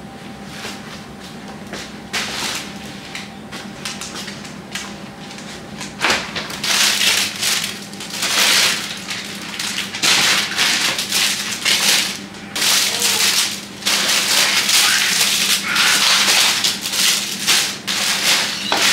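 Brown paper grocery bags rustling and crinkling loudly and irregularly as groceries are pulled out of them. This starts about six seconds in, after a quieter stretch with a few light knocks.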